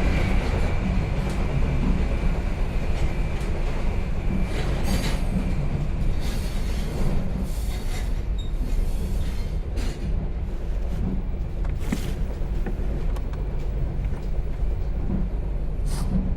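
Steady, loud low rumble with a hiss over it, like a vehicle in motion, broken by a few sharp knocks and clicks; a faint high tone sounds over it for the first few seconds.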